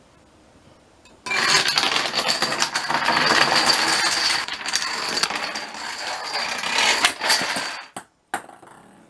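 A chain of dominoes toppling: a dense, rapid clatter of small tiles knocking into one another. It starts about a second in and runs for several seconds, followed by a couple of single clicks near the end.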